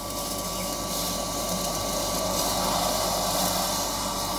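Forge blower fan running, blowing air into a coal fire: a steady rushing hum that grows louder over the first second or two.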